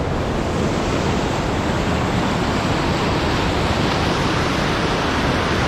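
Steady, loud rushing water of a mountain stream.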